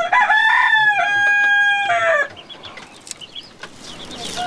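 A rooster crows once, a long call of about two seconds that rises, holds and drops away at the end.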